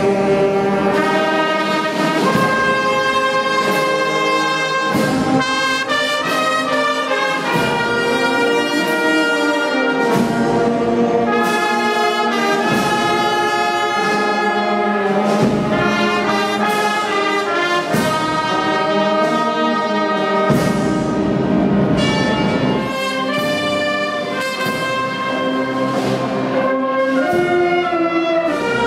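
A small brass ensemble of trumpets, trombones and horns playing a piece in full chords, the notes moving together in steps.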